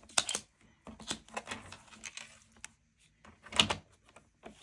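Patterned scrapbook paper being handled and cut on a tabletop: irregular light clicks and taps with soft paper rustle, the loudest cluster about three and a half seconds in.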